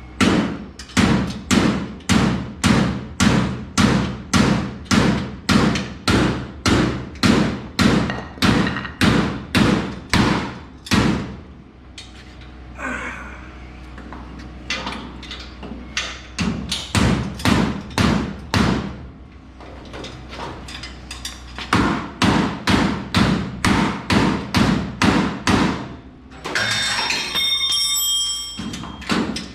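A hammer striking metal repeatedly, about two blows a second, in runs separated by short pauses. Near the end the blows stop for a brief metallic ringing scrape, then start again.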